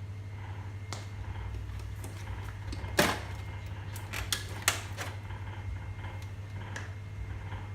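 Scattered sharp clicks and knocks from handling the casing of a wall-mounted air conditioner indoor unit being taken apart, the loudest about three seconds in and a quick cluster a second later, over a steady low hum.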